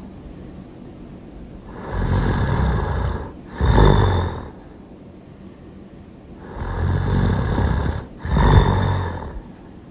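A person snoring loudly: two snores about five seconds apart, each a longer breath followed by a shorter, louder one, with quiet breathing between.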